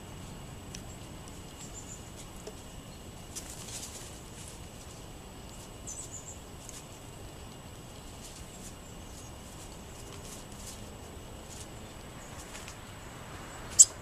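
Small songbirds giving scattered faint, high chip calls over a steady hiss, with one sharp, much louder chip near the end.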